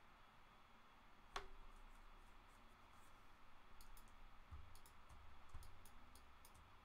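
Faint clicks from a computer mouse and keyboard. One sharp click comes about a second in, followed by a run of quieter quick clicks and a couple of soft low thumps.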